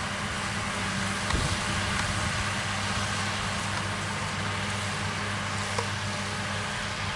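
Massey Ferguson 6180 tractor engine running steadily at constant speed, a steady low hum.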